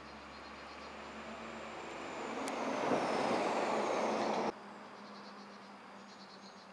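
A vehicle passing: its noise swells over about three seconds with a high whine falling in pitch, then cuts off abruptly about four and a half seconds in.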